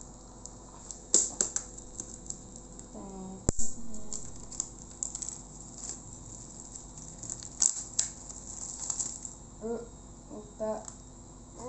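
A pack of clothespins being opened: packaging crinkling, with irregular clicks and clattering of the pegs. There is a sharp knock about three and a half seconds in.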